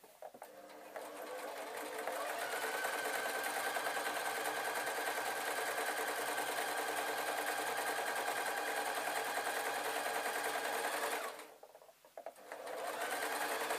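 Electric sewing machine stitching a long seam. It speeds up over the first two seconds and runs at an even speed. It stops for about a second near the end, then starts up again.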